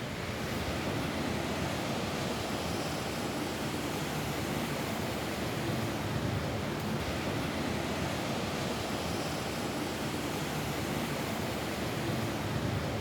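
Steady rain falling on a roof, an even hiss without separate drops standing out.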